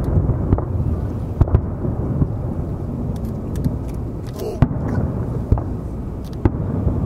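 Aerial firework shells bursting in sharp reports, about one a second, over a continuous low rumble of booms.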